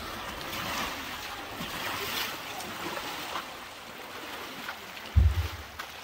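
River water splashing and churning around a young elephant wading through the shallows. Near the end there is a short, loud low thump.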